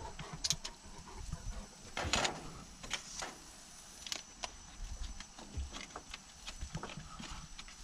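Scattered light clicks and rustles of metal tongs on a gas grill's grates and a paper butter wrapper being handled as steaks are buttered on the grill, over a faint steady hiss.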